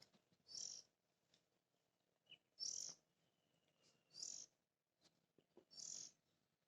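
A bird calling faintly, four short calls evenly spaced about a second and a half apart.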